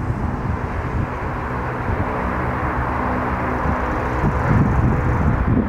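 Antonov An-22's four turboprop engines with contra-rotating propellers at take-off power as the aircraft lifts off and climbs. A steady drone with several held tones over a rushing noise.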